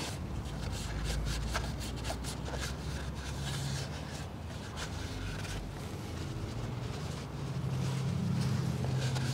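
Shop rag rubbing and wiping on the cast front housing of a CAT C15 diesel engine in short scratchy strokes, cleaning off old seal material, over a steady low engine-like hum that grows louder near the end.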